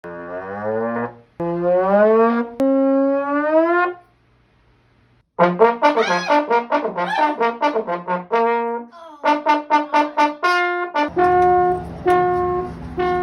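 Brass notes in a sound-effect style: two or three slow upward slides, then after about a second's pause a quick run of short notes, ending with short notes repeated on one pitch over a low rumble.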